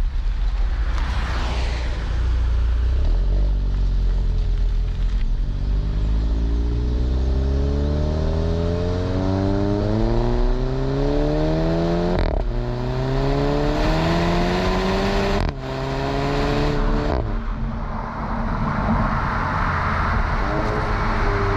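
Volkswagen Golf 7 GTI's 2.0-litre turbo four-cylinder through its stock exhaust, accelerating hard with its pitch climbing through the gears. Sharp cracks at the DSG upshifts come about twelve seconds in and again near fifteen and seventeen seconds, each followed by a drop in pitch. After that the car eases off into a lower, steady run.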